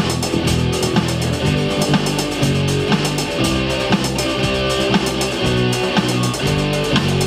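Rock band playing an instrumental passage: guitars over a drum kit keeping a steady beat.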